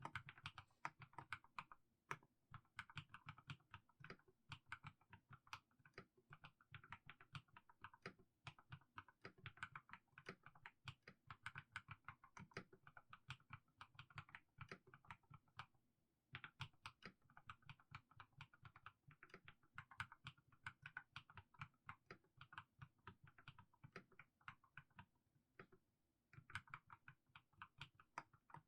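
Mechanical keyboard with fully lubed Haimu Sea Salt switches being typed on: a steady run of soft keystroke clacks, with short breaks about sixteen seconds in and near the end.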